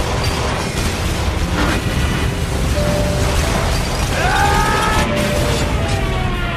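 War-film battle soundtrack: a continuous barrage of explosions and anti-aircraft gunfire during an air attack on a battleship, with music underneath.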